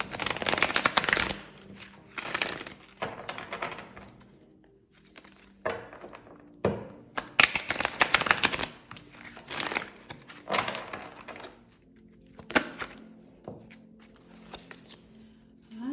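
Tarot cards being shuffled and handled: a run of irregular papery swishes and rustles, some brief and some lasting a second or so, with quiet gaps between them.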